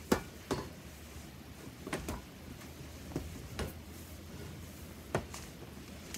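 Light knocks and clunks of picture frames being handled and set down, about seven short bumps spread over several seconds, the first the loudest.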